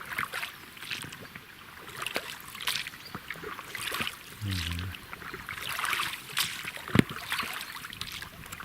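Oars dipping and splashing in river water as a boat is rowed, water trickling off the blades between strokes. A brief low voice-like hum about halfway through and a single sharp knock near the end.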